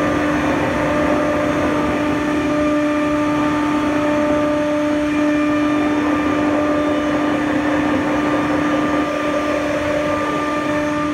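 Masterwood 15/38 K wood CNC router's spindle running with a steady high whine as it machines a wooden panel, over a dense rushing noise of cutting and dust extraction.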